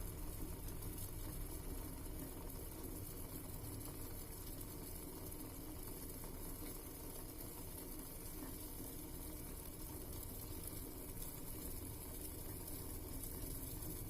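Pot of water with spices bubbling steadily on the stove as it comes up to a full boil.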